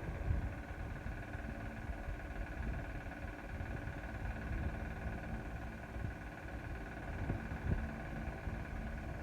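A running motor: a steady low rumble with a constant hum.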